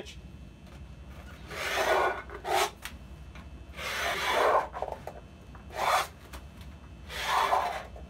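Handmade one-inch scribe, sharpened steel pop-rivet pins set in a small stick, scratching along the edge of duct sheet metal in four rasping strokes of under a second each, marking the 1-inch line for the S-clip edge.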